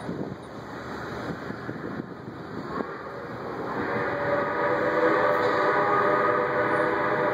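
Rumble of a departing train. About four seconds in, Milwaukee Road 261's steam whistle starts a long, steady chord blast that is still sounding at the end.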